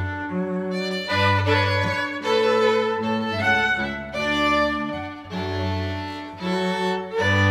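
Background music of bowed strings, violin over cello, playing a slow melody of held notes that change about once a second.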